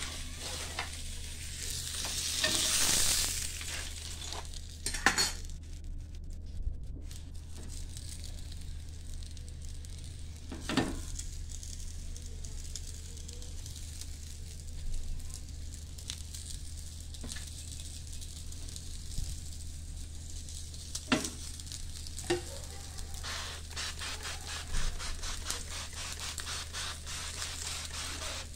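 Meat-stuffed pitas (arayes) sizzling steadily in a ridged grill pan, with a few sharp knocks of a utensil against the pan.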